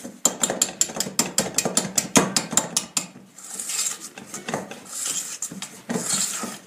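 Whisk beating a thick paste of egg yolks, sugar and flour in a stainless steel bowl, the wires clicking and scraping against the metal. Rapid strokes of about seven a second for the first few seconds, then slower, broader scraping strokes.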